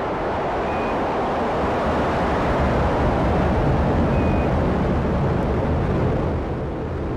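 Atlas V rocket carrying the Starliner capsule lifting off, its main engine and solid rocket boosters giving a loud, steady, deep rumble of rocket exhaust.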